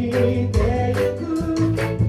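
A group of voices singing a song together over a live band, with guitar and a steady drum beat.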